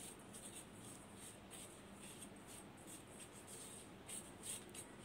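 Soft, irregular scratchy strokes of a pastry brush rubbing ghee over the inside of a nonstick cake pan to grease it, faint, with a few louder strokes near the end.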